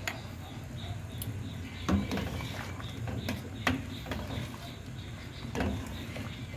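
Metal ladle stirring broth in a stainless steel pot, with a few sharp knocks of the ladle against the pot over a steady low background.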